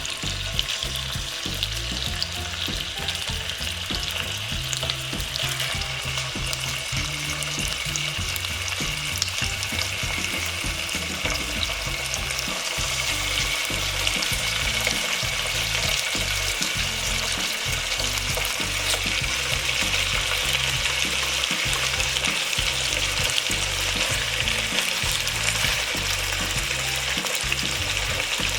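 Food sizzling and crackling as it fries in hot oil, with stirring in the pan; the sizzle grows a little louder about halfway through.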